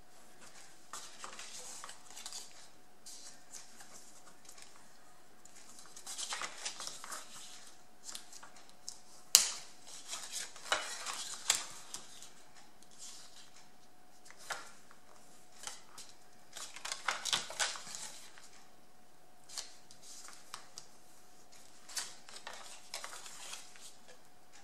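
A bone folder scraping along fold lines in scrapbook paper to crease them, with paper rustling in short bursts of strokes and a few sharp clicks.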